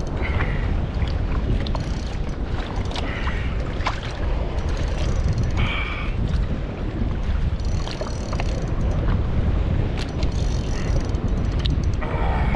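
Wind buffeting the microphone and choppy sea water washing around a kayak, a steady low rumble. A few short whirring bursts from the fishing reel are heard as line is wound in.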